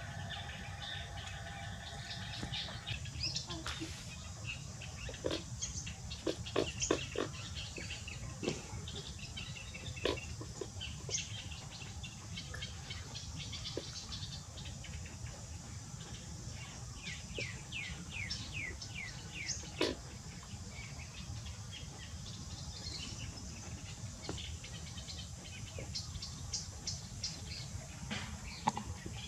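Scattered short, high animal chirps and squeaks over a steady low hum, with a pitched call held for the first few seconds and a quick run of falling chirps about two-thirds of the way through.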